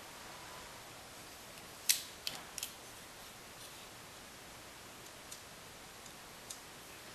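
Stainless steel Leatherman Wave multi-tool being handled: a sharp metallic click about two seconds in, two more quickly after, then a few fainter clicks, as its implements are moved and snap into place.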